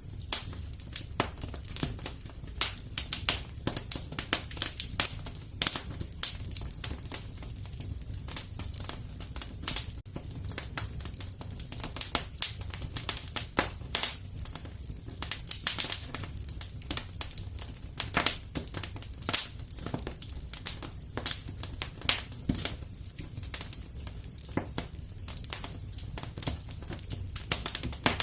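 Fire crackling in a fireplace: irregular sharp pops and snaps, several a second, over a low steady rumble of the flames.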